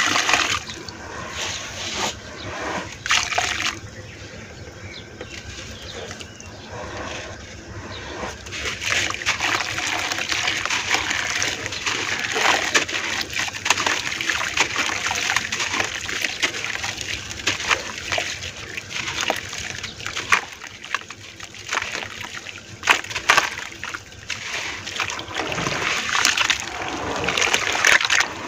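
Hands crumbling chunks of gritty red dirt into a basin of water, the grit pattering and splashing into the water with many small crackles. Near the end the hands squeeze and slosh the wet mud.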